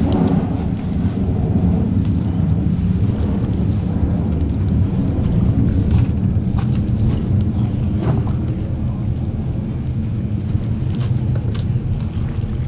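Steady low rumbling of wind buffeting the microphone, with a few faint clicks.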